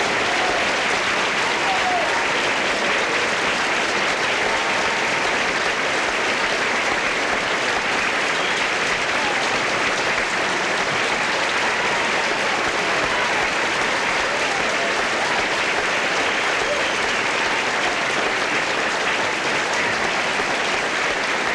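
Theatre audience applauding steadily, with a few faint voices calling out over the clapping.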